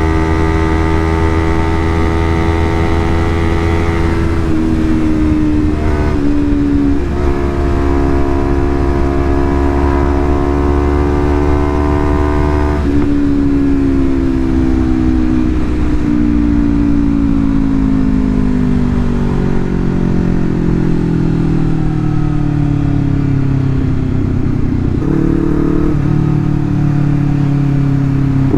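Honda CBR250RR engine running through a Leovince GP Corsa full-system exhaust at part throttle. It holds steady revs and drops in pitch in steps, then sinks slowly for several seconds before the revs jump up again near the end.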